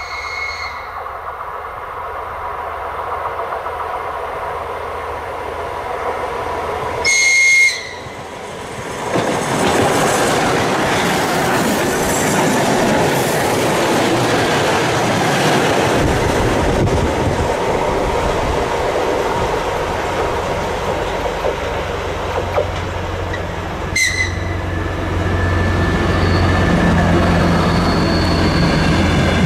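Train horn sounding briefly at the start and again louder about 7 seconds in, then an ER2T electric multiple unit passing at speed, its wheels clattering over the rails. Later a DR1A diesel railcar's engine drones, with a short horn blast about 24 seconds in.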